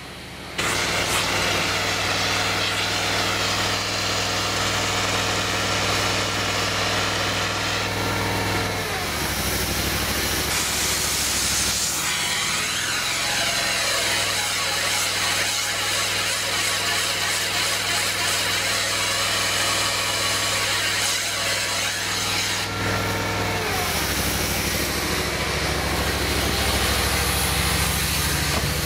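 Bead cavity-wall insulation machine running steadily while its injection hoses are flushed out with water; the engine-like drone shifts down in pitch a couple of times.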